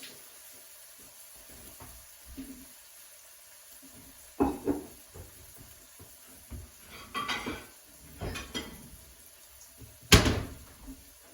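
A cooking utensil scraping and knocking against a frying pan in a few separate bouts, with one sharp clank about ten seconds in, the loudest sound.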